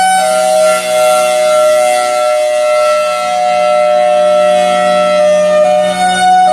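Federal Signal Thunderbolt 1003 outdoor warning siren sounding loudly. It holds a steady tone for several seconds, then switches back near the end to its alternating two-tone hi-lo signal, with a steady low hum underneath.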